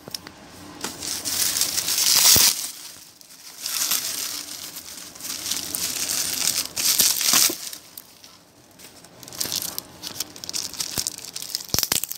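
Bubble wrap and a clear plastic sleeve crinkling as a parcel is unwrapped by hand. It comes in several bursts, loudest about two seconds in and again around seven seconds.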